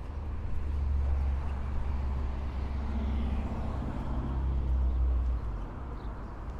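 A motor vehicle driving past, with a low engine rumble and road noise that swells midway and drops away about five seconds in.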